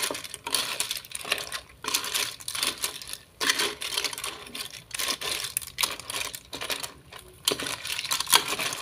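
Lala clam shells clinking and clattering against one another and the pot as they are stirred with a wooden spatula: a rapid, irregular run of small clicks.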